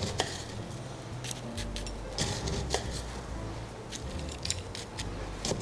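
Crushed ice being spooned into a stemmed glass with a metal bar spoon: irregular crunches and light clinks of spoon on ice and glass.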